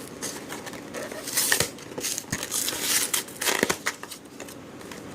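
Trading card packaging being torn open and crinkled by hand: irregular crackling and tearing with a few sharp clicks, loudest about a second and a half in and again near three and a half seconds.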